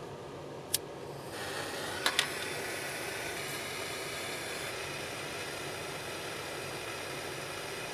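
A small soldering torch's flame hissing steadily, growing stronger about a second in, with a few sharp clicks in the first couple of seconds.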